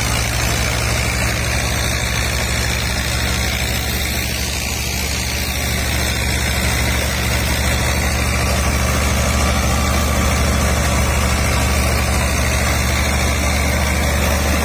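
Diesel tractor engine running steadily at working speed, driving a Sharif wheat thresher through the PTO, with the steady whir and hiss of the thresher's drum and fan as it threshes wheat.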